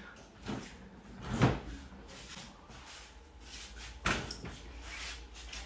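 Refrigerator door being pulled open, with a sharp knock about a second and a half in and another clunk about four seconds in.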